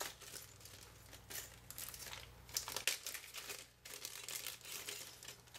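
Sheets of paper being handled, giving faint, irregular rustling and crinkling.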